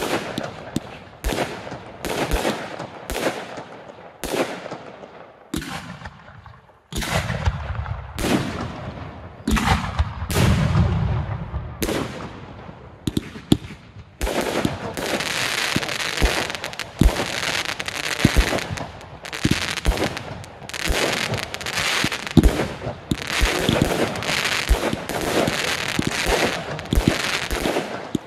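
Aerial fireworks shells bursting one after another, each bang trailing off in an echo. About halfway through, the bursts come faster and overlap into a near-continuous barrage.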